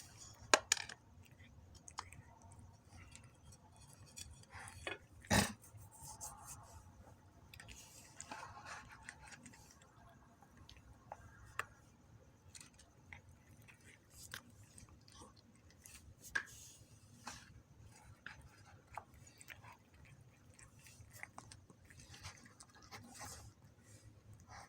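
Cats chewing snack pieces, with scattered small clicks and two sharper knocks, about half a second in and about five seconds in.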